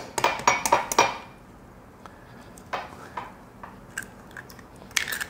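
An egg being cracked against the rim of a small glass bowl: a quick run of sharp taps and clinks in the first second, then a few lighter clicks as the shell is pulled open.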